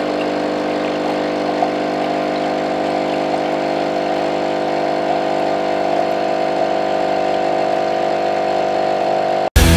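Capsule coffee machine's pump buzzing steadily while brewing into a mug, stopping abruptly near the end.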